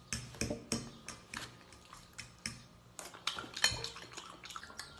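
Cutlery clicking and scraping against a plate while someone eats: irregular sharp clinks, one or two a second.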